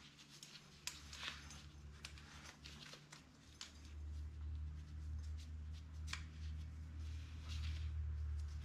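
Light clicks and rustles of small metal parts being handled, such as hose clamps being fitted onto a heater core's pipes. About four seconds in, a steady low hum starts and stays under the clicks.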